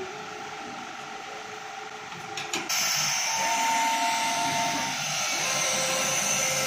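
CNC carpet cutting machine running: a steady whir with thin motor whines that step up and down in pitch as the cutting head travels. About two and a half seconds in it turns suddenly louder and hissier.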